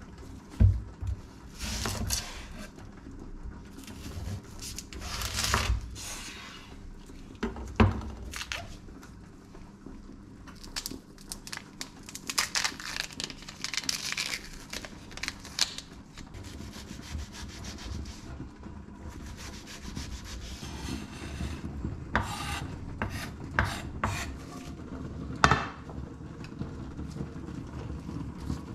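An onion being peeled and cut on a wooden cutting board: the dry, papery skin crackles and rustles as it is pulled off, in irregular stretches, with several sharp knocks of a knife on the board near the end.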